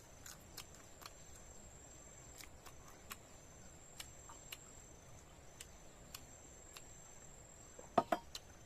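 Scattered sharp clicks and smacks of eating, over a steady high-pitched insect trill, likely crickets; a louder cluster of clicks comes about eight seconds in.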